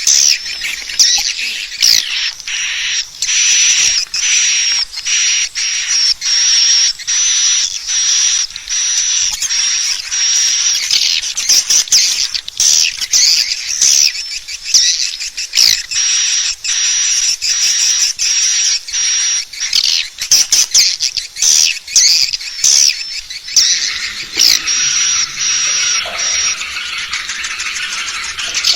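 Swiftlet call recording: dense, continuous high twittering and chirping, with repeated thin high trilling notes and many rapid sharp clicks. This is the kind of call sound played to lure swiftlets into a nest house.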